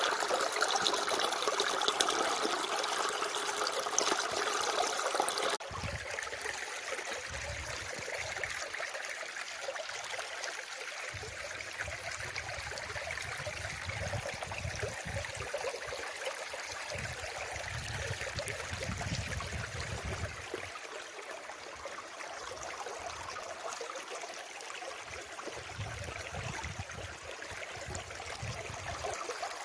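Flowing water, a steady trickling rush. About five seconds in it suddenly drops to a quieter flow, with intermittent low rumbling.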